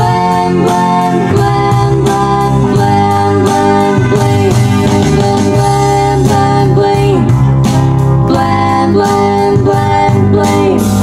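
Roland VA-7 arranger keyboard playing a melody over a backing with a steady beat. Several notes slide up or down in pitch.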